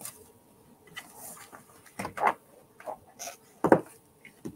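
A string of short plastic clicks and knocks as clear stamping supplies (a clear photopolymer stamp and its acrylic block) are handled and put away into a plastic stamp case on the craft desk, with one louder knock near the end.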